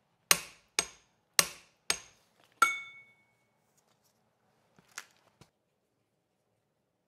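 Five sharp metal strikes about half a second apart while the flywheel nut on a Briggs and Stratton small engine is tightened. The last strike rings briefly. A couple of faint clicks follow about five seconds in.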